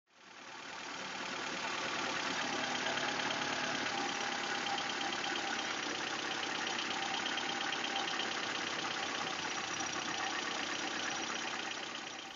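Toyota 4A-GE 1.6-litre twin-cam 16-valve four-cylinder engine idling steadily, fading in over the first second or so and out near the end.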